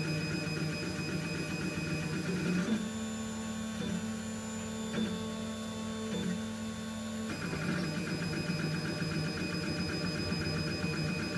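Mankati XT Plus 3D printer running a print: the stepper motors whir in shifting tones as the extruder head moves, over a steady hum. For a few seconds in the middle the motor sound settles on a single steady tone with a few short breaks, then the busier whirring returns.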